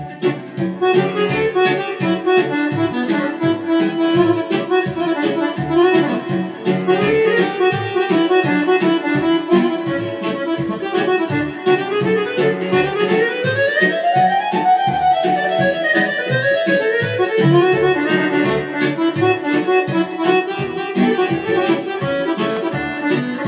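Electronic keyboard playing an instrumental break: a melody line over a steady rhythm-and-bass accompaniment. The melody makes a long pitch glide, rising for about three seconds past the middle and then sliding back down.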